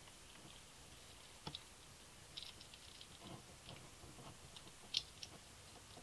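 Faint scattered clicks and ticks of a slide-carburetor's metal slide, needle and throttle cable end being handled and fitted together by hand, with one sharper click about five seconds in.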